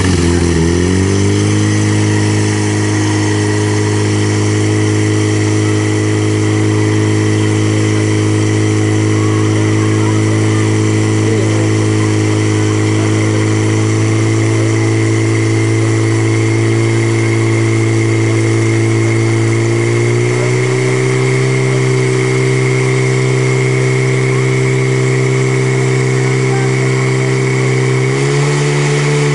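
Portable fire pump's engine running hard at high revs, forcing water out through the attack hoses. It holds a steady pitch, and the pitch steps up twice, about two-thirds of the way in and again near the end.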